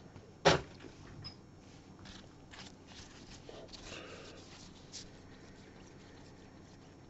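A sharp knock about half a second in, then soft clicks and rustling as a thick stack of trading cards is handled and fanned with gloved hands.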